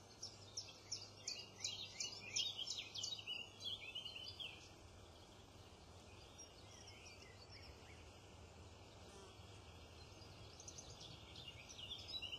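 Small birds chirping and singing in a quick run of short high calls for the first few seconds, then only faint scattered calls over a low steady background hum.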